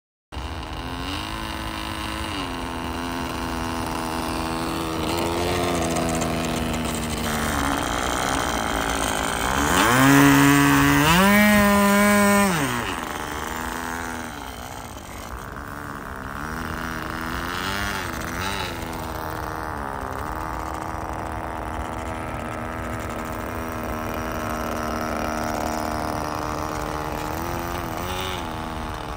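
O.S. 15 LA two-stroke glow engine on a balsa RC plane, idling and taxiing. About ten seconds in the throttle is opened and it revs up high for about two seconds, the loudest part, then drops back to idle, with a couple of shorter throttle blips later.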